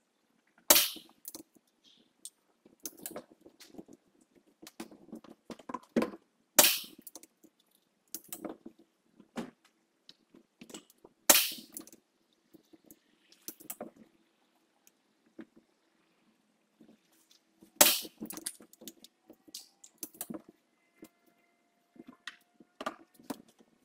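BRK Ghost PCP air rifle firing, each shot a sharp crack: four shots about five to six seconds apart, and a fifth right at the end. Quieter clicks and rattles of cocking and loading the next pellet come between the shots.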